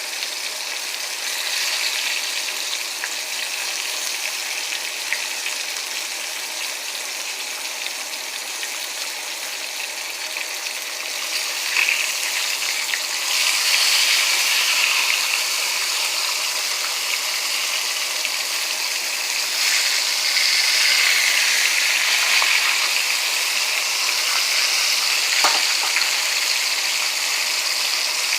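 Flour-coated ribs frying in hot oil, a steady sizzle that grows louder about halfway through, over the rush of a range hood fan.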